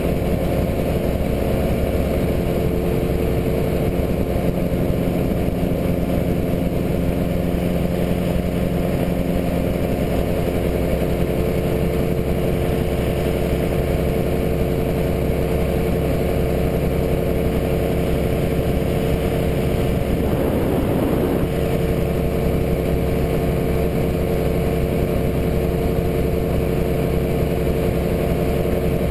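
Prodrive surface-drive mud motor pushing a boat, its engine running at a steady speed in a constant drone. Briefly wavers about two-thirds through.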